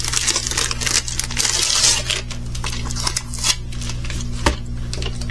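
Crinkling and rustling of plastic packaging and a diamond painting canvas sheet being handled, thinning after about two seconds into scattered light clicks and taps, with one sharper tap near the end.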